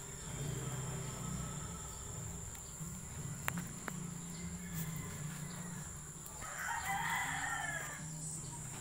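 A rooster crows once, about a second and a half long, near the end, over a steady high insect drone. Two short sharp clicks come earlier, about three and a half seconds in.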